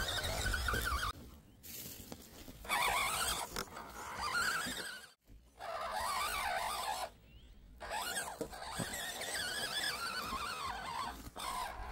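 Whine of a 1/12-scale RC crawler's small 280 brushed electric motor and geartrain, coming in spells as the throttle is worked, its pitch wavering with load, with short pauses where it stops.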